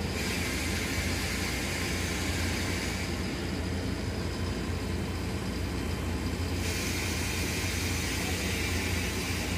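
A large engine running steadily with a low hum, joined by a hiss that sounds for the first three seconds, stops, and comes back for the last three.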